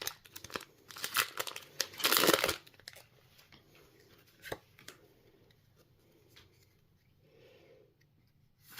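Foil Pokémon booster pack wrapper being torn open: several loud crinkling rips in the first couple of seconds, then quieter handling of the pack and cards with a single tap near the middle.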